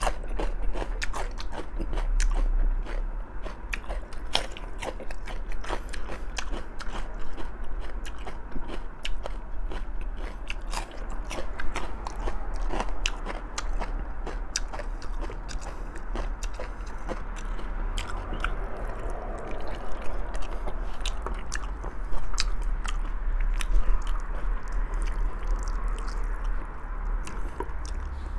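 Close-up eating sounds of someone chewing and biting into stewed pork trotters, with many quick wet clicks and smacks throughout.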